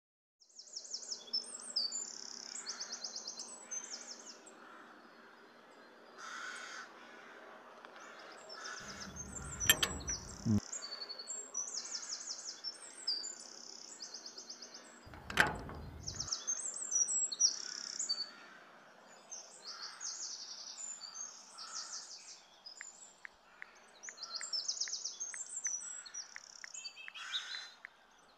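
Many birds chirping and calling in quick, repeated phrases throughout, with two brief louder sounds about ten and fifteen seconds in.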